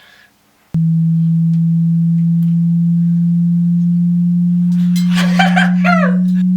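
A loud, low, steady hearing-test tone starts suddenly about a second in and holds without a break. A brief burst of voice-like sounds breaks in over it around five seconds in.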